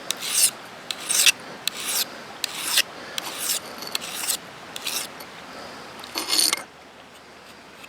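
Knife blade being drawn across a sharpening stone in a series of short scraping strokes, about one or two a second, stopping about a second before the end. This is the sharpening of a blunted edge, not yet sharp enough to cut paper.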